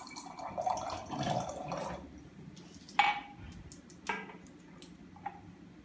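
Water running from a countertop water dispenser into a drinking glass for about two seconds, then two clinks about a second apart as glasses are set down on the counter.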